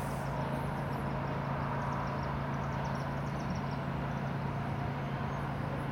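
Steady wash of distant throughway traffic with a constant low hum. The dog barking played from the test speaker cannot be made out over it.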